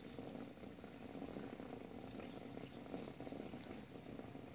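Faint, steady, rough low background noise with no speech: outdoor room tone.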